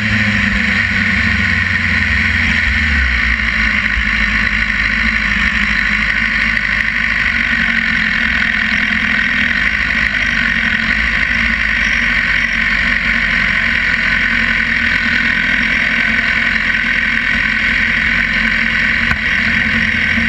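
Sport motorcycle engine running at low revs as the bike rolls slowly, its low note shifting in the first few seconds and then holding steady at idle, with a constant high drone.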